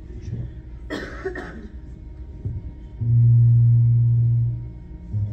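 A cough about a second in, then a loud, steady low musical note held for nearly two seconds, and a second, slightly lower held note starting near the end.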